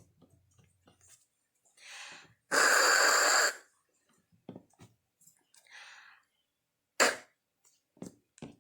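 A woman voicing Spanish letter sounds in isolation: a loud, throaty hissed 'jjj' held for about a second (the sound of J), then a single short, sharp 'k' burst (the sound of K) near the end.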